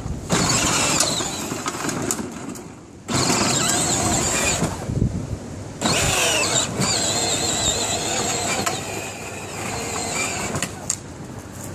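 Electric motors and gearboxes of a child's battery-powered ride-on toy Jeep whining as it drives. It runs in bursts, stopping briefly about three and five seconds in.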